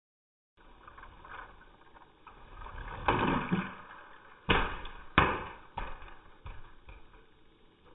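Custom LEGO cars crashing and tumbling on carpet: a rustling clatter about three seconds in, then sharp knocks about four and a half and five seconds in, with smaller knocks and scuffing between.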